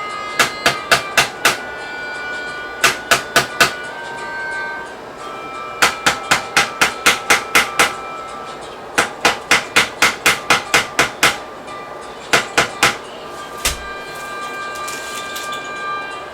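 Hammer blows in quick runs of about four a second, several runs with short pauses between them, during furniture assembly.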